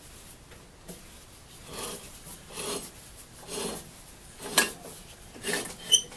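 A hand turning a small-engine flywheel in a series of strokes, each giving a short rasping rub, about one a second. A sharp metallic clink comes near the end.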